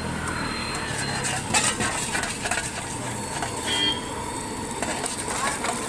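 Steel spatula clinking and scraping against a steel wok as an egg is stirred in hot oil, with a steady sizzle. A vehicle horn sounds briefly about four seconds in over a low traffic hum.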